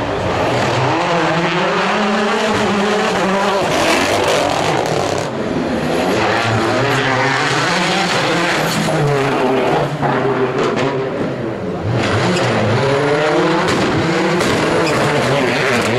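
Rally cars on a tarmac stage, running one after another with their engines revving hard. The pitch rises and falls repeatedly with gear changes as they brake into a corner and accelerate out of it.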